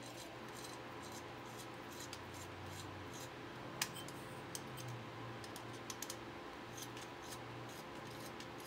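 Scattered faint clicks and taps of small computer parts being handled and fitted, one sharper click about four seconds in, over a steady low room hum.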